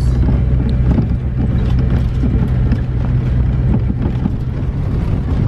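Vehicle driving, heard from inside the cabin: a steady low engine and road drone with irregular light rattling.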